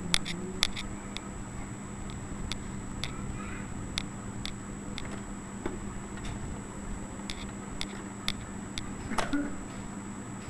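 Scattered light clicks and taps at uneven intervals from hands working the needle and presser-foot area of a Usha sewing machine, over a steady low hum.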